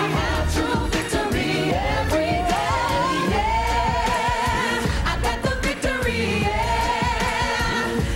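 A woman singing a gospel song live into a handheld microphone over a band with drums and bass, backing singers behind her. She sings wavering runs early on and holds long notes through the second half.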